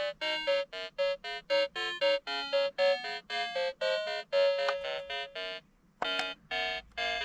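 Background music: a bright electronic keyboard melody of short, detached notes, about four a second, with a brief break about six seconds in.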